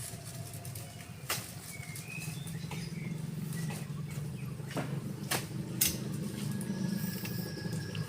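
A vehicle engine running with a steady low hum that grows slightly louder about three seconds in. Scattered sharp clicks and knocks sound over it, about four in all.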